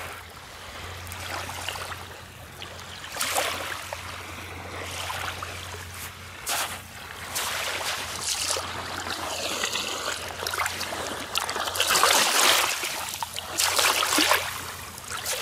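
Shallow sea water washing and lapping over a pebble shore at the water's edge, swelling in irregular surges.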